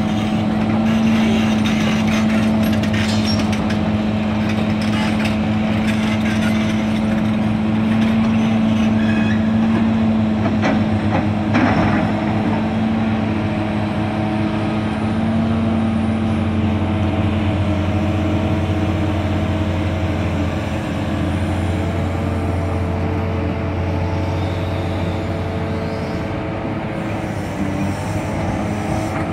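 Diesel engines of tracked hydraulic excavators running steadily, with a low even hum and a few knocks and clanks, the loudest about twelve seconds in.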